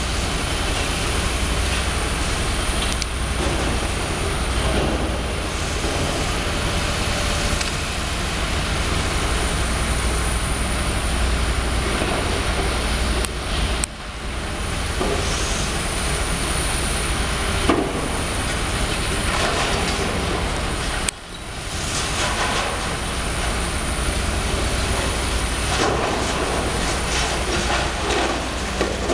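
Demolition excavator's diesel engine running steadily under load while its attachment breaks away brickwork, with the crunch and clatter of falling masonry and a sharp knock about 18 seconds in.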